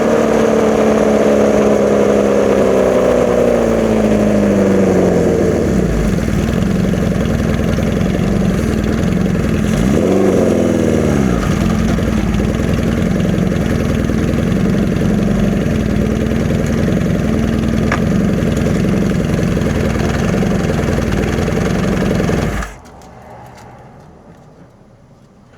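1981 Honda CB650's air-cooled inline-four, on Mikuni VM34 carbs and a Hindle 4-2-1 exhaust, with its revs falling off and settling to a steady idle. It gets one quick throttle blip about ten seconds in, idles on, and is then switched off with an abrupt cut near the end.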